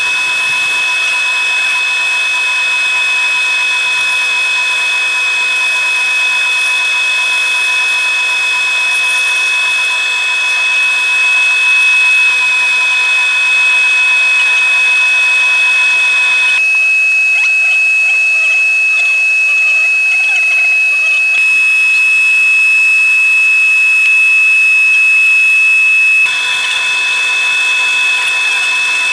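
Wood lathe running with a steady high-pitched whine while the turned oak-and-walnut mallet is sanded on it. The sound shifts abruptly a few times.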